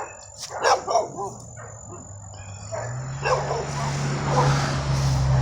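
A dog barking in short bursts, several times. Over it, a steady low hum comes in after about a second and grows louder through the second half.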